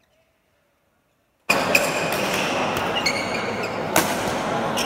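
About a second and a half of near silence, then the noise of a crowded sports hall cuts in suddenly. Over it come sharp cracks of badminton rackets striking the shuttlecock, about a second apart, in a doubles rally.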